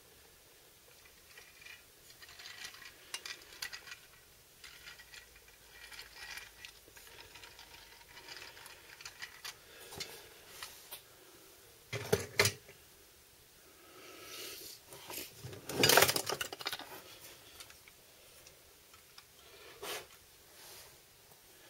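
Toy dump truck pushed by hand across a hard vinyl floor: its small wheels roll and rattle, with scattered light clicks of hard toy parts. Two louder knocks stand out in the second half.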